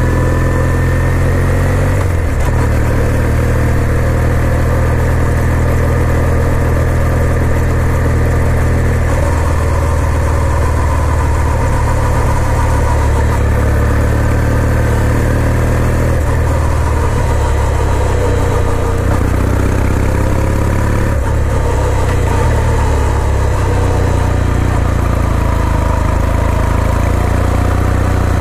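2020 Kawasaki W800's air-cooled parallel-twin engine running as the motorcycle is ridden, its note shifting several times as engine speed changes.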